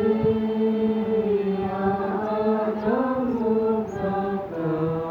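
A voice singing in a slow chant, holding long notes. About three seconds in, the pitch rises and falls, and near the end it steps down to a lower held note.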